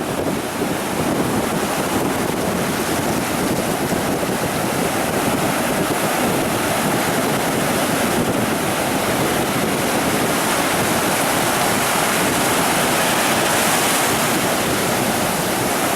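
Steady rush of ocean surf, with wind blowing across the microphone.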